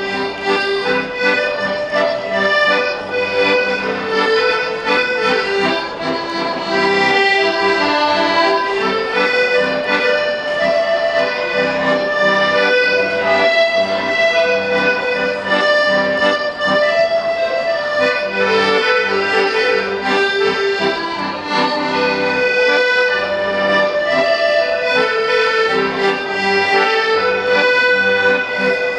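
Piano accordion played solo: a melody of held notes over a steady pulse of bass chords.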